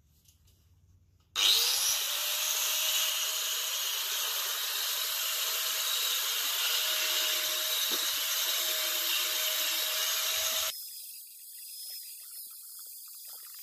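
Angle grinder started about a second in, its motor whine rising briefly as it spins up, then sanding the steel gate frame with a loud, steady hiss to clean the metal for paint. It stops suddenly near the end, leaving a quieter hiss.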